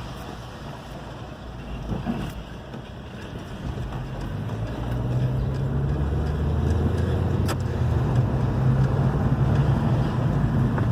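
Hyundai i30's 2.0 petrol engine running as the car is driven, with road noise; the engine note grows louder from about four seconds in and holds steady. A single sharp click about seven and a half seconds in.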